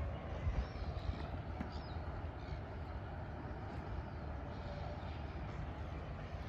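Steady outdoor ambience: a low, unsteady rumble with a hiss over it, and a few faint high chirps in the first two seconds.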